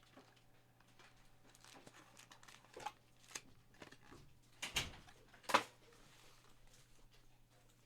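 Trading cards and their foil pack wrappers being handled: soft rustling and small clicks, with a few louder crinkles and snaps about midway, over a steady low hum.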